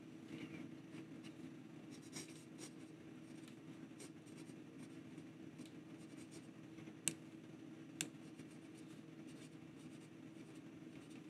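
Medium steel nib of a Platinum Balance fountain pen writing cursive on lined notebook paper: a faint scratching with a good amount of feedback, like a graphite pencil. Two sharp ticks about a second apart come a little past the middle, over a steady low hum.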